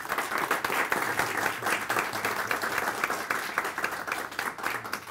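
Audience applauding, a dense patter of many hands clapping that holds steady, then thins out and fades near the end.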